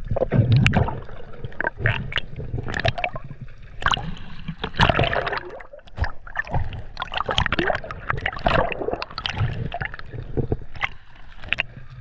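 Choppy sea water sloshing and gurgling around a camera held at the surface, with splashes and bubbles as it dips under and comes back up.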